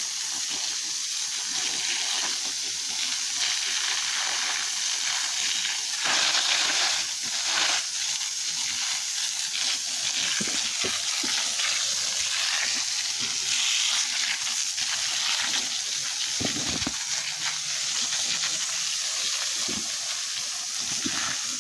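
Water spraying from a garden hose onto plants and soil: a steady hiss that swells louder in a few spells.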